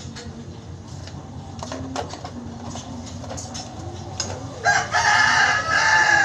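A rooster crows once, loud and drawn out for about a second and a half, starting about four and a half seconds in and falling in pitch at the end. Before it come scattered light clicks and taps of small metal parts being handled on a children's bike.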